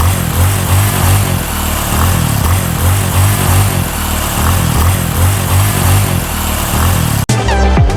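A motor vehicle's engine running with a low, pulsing drone and road noise. It cuts off abruptly about seven seconds in, and electronic music starts.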